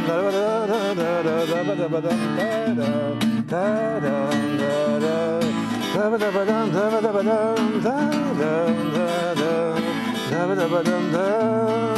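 Instrumental break in an acoustic song: steady acoustic guitar accompaniment, with a wavering, gliding melody line carried over it.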